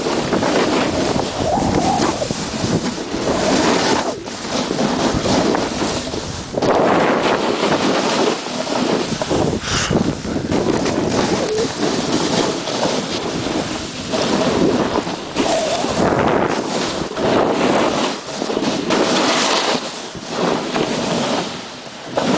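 Wind buffeting the microphone during a fast descent through deep powder snow, mixed with the rushing hiss of sliding over snow. The noise swells and fades every second or two.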